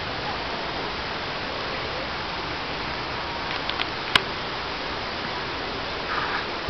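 Steady rushing noise of water in a dolphin pool, with one sharp click a little after four seconds in.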